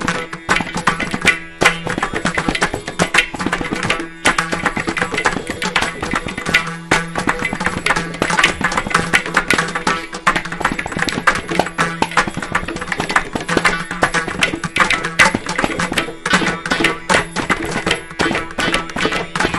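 Carnatic percussion ensemble playing continuous, dense strokes: mridangams with ghatam, kanjira and morsing (jaw harp), over a steady drone, in the seven-beat Mishra Chapu tala.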